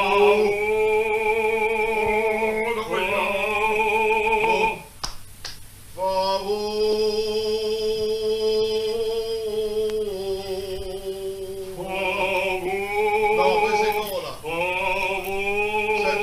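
A man singing in full operatic voice, holding long notes with vibrato in three phrases, with a short break about five seconds in.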